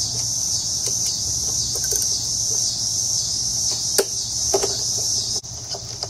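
A steady, high insect chorus, with a few faint, irregular metallic clicks and taps from a socket tool on the motorcycle's front brake caliper bolts; the sharpest tap comes about four seconds in.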